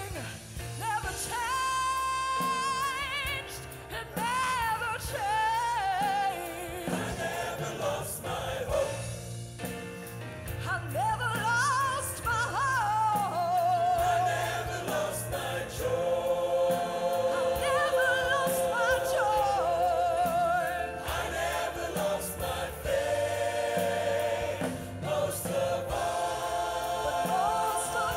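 Live gospel song: a woman's lead voice singing with vibrato and melodic runs, a choir singing with her, over a band with bass and drums.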